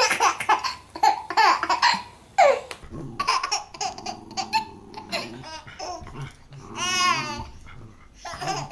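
A baby laughing in short repeated bursts of giggles and belly laughs, with one longer high-pitched laugh near the end.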